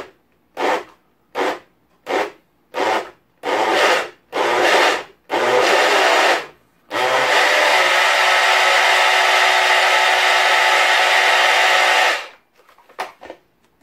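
A JML personal bottle blender pulsed in about seven short bursts that grow longer, then run continuously with a steady whine for about five seconds before cutting off sharply. It is blending a milk, banana and strawberry smoothie. A couple of light clicks follow near the end.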